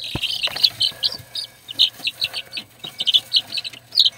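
Baby chicks peeping: a quick run of short, high-pitched cheeps, several a second.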